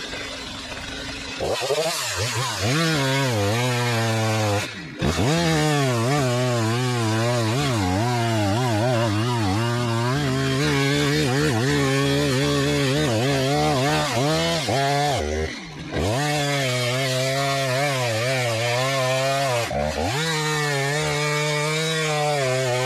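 Gasoline chainsaw cutting through the base of a standing tree to fell it. The engine runs at full throttle under load, its pitch wavering as it works through the wood, and it drops off briefly a few times before picking up again.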